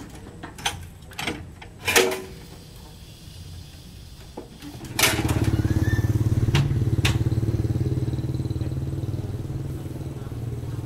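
A few sharp metal clanks, then about five seconds in an engine starts abruptly and keeps running steadily.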